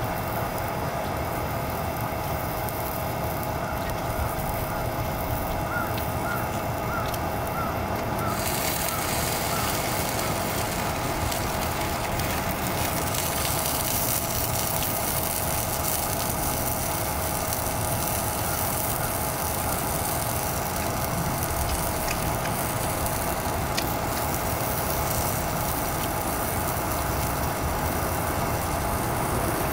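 Single-burner butane canister stove burning steadily under a rectangular frying pan, with sausages and French fries sizzling in it. The sizzling grows louder about eight seconds in.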